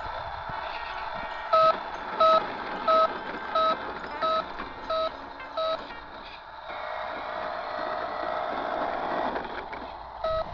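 Electronic reversing-warning beeper of a toy tractor-trailer truck: seven evenly spaced beeps, about one and a half a second, starting about a second and a half in, then one more beep near the end. A steady whir runs under the beeps.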